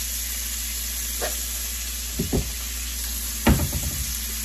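Diced onions and green peppers sizzling steadily in a hot skillet. A few short knocks sound over the sizzle, the loudest about three and a half seconds in.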